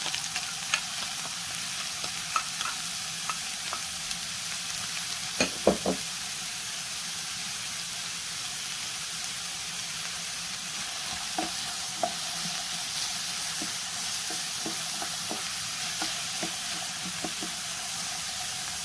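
Onion sizzling in hot oil in a frying pan, a steady hiss, with a utensil clicking against the pan as it is stirred; two louder knocks come about five and a half seconds in.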